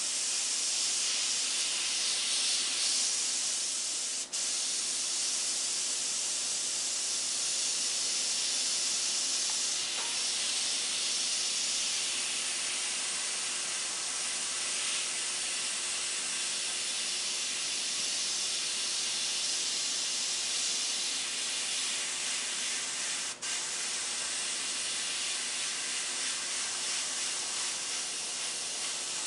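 Iwata gravity-feed airbrush spraying paint in a steady hiss of air, breaking off briefly twice.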